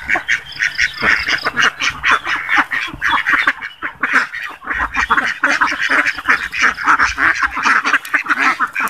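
A large flock of domestic ducks quacking non-stop, many calls overlapping into one continuous din.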